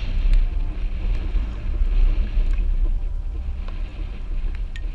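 Strong wind buffeting the microphone in a heavy, uneven low rumble, over choppy water splashing around a kayak, with scattered sharp ticks.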